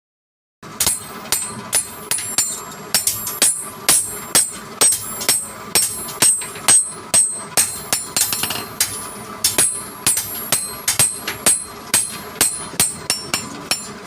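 Hammer blows on metal, about two to three strikes a second at an uneven pace, each hit with a short, bright metallic ring. It starts just under a second in.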